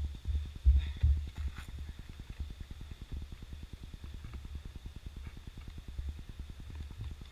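Wind buffeting the microphone, heard as an uneven low rumble, with a faint steady high tone above it and a few faint ticks about a second in.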